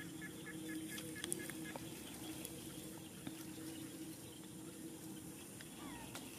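Rural field ambience: a faint steady hum, with a run of short high chirps, about four a second, in the first second and a half, and a brief gliding call near the end.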